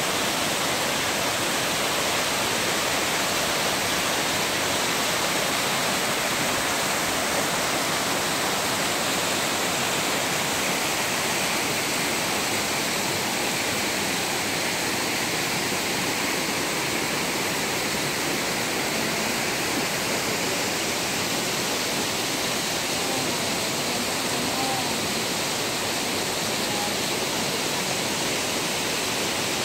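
Steady rush of a small waterfall pouring over rocks into a pool.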